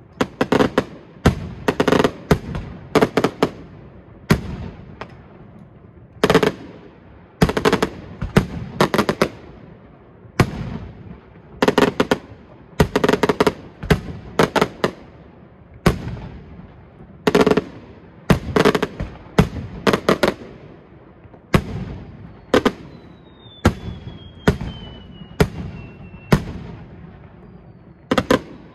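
Fireworks display: aerial shells bursting in a rapid, irregular run of loud bangs, often several in quick succession, each trailing off in an echo. About three-quarters of the way through, a thin whistle slides slowly down in pitch for a few seconds.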